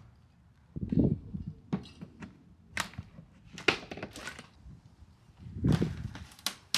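Irregular knocks and thuds with sharp clicks, the sound of hand work taking out an old entry door. The heaviest thuds come about a second in and again near the end.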